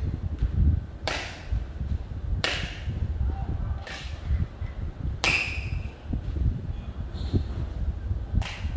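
Sharp hand slaps of a wushu routine, five of them, about one every second and a half with a longer gap before the last. Each one rings briefly in a large echoing hall, over a steady low rumble.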